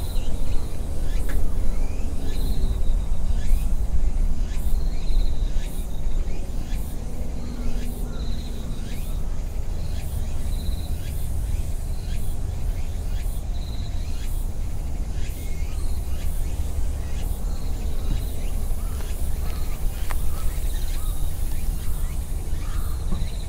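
Outdoor ambience: a bird repeats a short high call about every two seconds over a steady low rumble, with faint scattered clicks.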